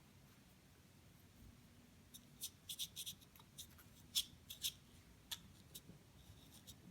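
Light, irregular clicks and scratches of a cotton swab scrubbing solvent-soaked grime out of a pistol slide's firing-pin channel, starting about two seconds in.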